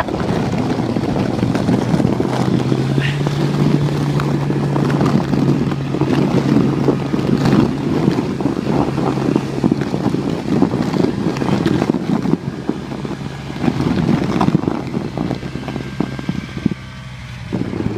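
Snowmobile engine running steadily at low speed, its pitch lifting slightly a few seconds in and easing back down after several seconds, with wind noise on the microphone.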